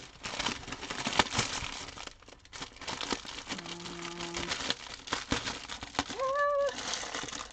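Clear cellophane bag and shredded paper filler being crinkled and rustled by hand as the package is opened, a run of crackly crinkles with a short lull about two seconds in.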